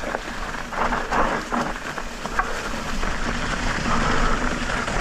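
Electric mountain bike tyres rolling fast over a dirt trail covered in dry leaves, a steady crackling rush with a few sharp clicks about a second in.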